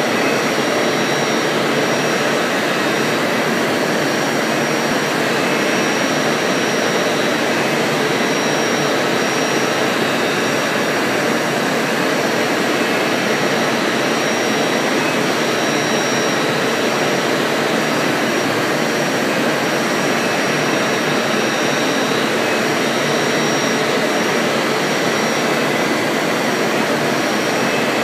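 Five-axis CNC mill cutting a turbocharger compressor wheel under flood coolant: a steady rush of coolant spray and cutting noise with a constant high spindle whine.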